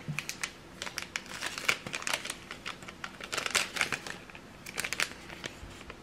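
Paper tea sachet crinkling as it is handled, in irregular clusters of sharp crackles that stop near the end.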